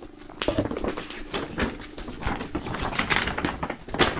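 Folded glossy paper poster being unfolded by hand: irregular rustling and crackling of the paper.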